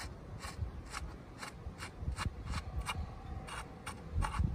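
Rusty banjo bolt on the breather hose of a Massey Ferguson TEA20 engine being unscrewed by hand: repeated short gritty scrapes and clicks of metal on metal, about three a second.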